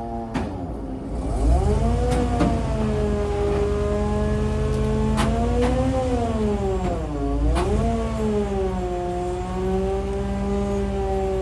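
An engine running under changing load, its speed sagging and recovering several times (the deepest dip about seven seconds in), with a few sharp cracks.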